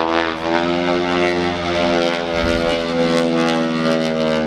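Propeller airplane flying low overhead: a loud, steady engine drone with several pitched tones that shift slightly in pitch near the start.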